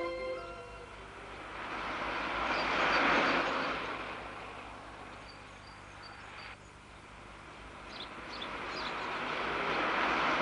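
A passing vehicle: a rushing noise swells to a peak about three seconds in and fades. It cuts off sharply, and a second pass swells in toward the end. Short high chirps come and go.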